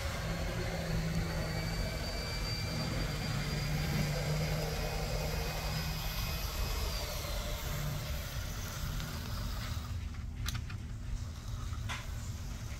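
Z scale model diesel locomotive running on its track: a faint, thin, high motor whine that slides down in pitch about seven seconds in, over a steady low rumble, with a few sharp clicks near the end.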